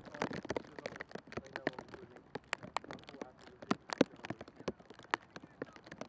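Irregular sharp taps and clicks, several a second, over a low outdoor hiss, with faint voices in the first second.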